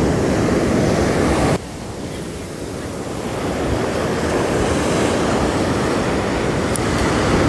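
Ocean surf washing and breaking in the shallows, a steady rushing hiss. It drops suddenly about one and a half seconds in, then swells gradually again.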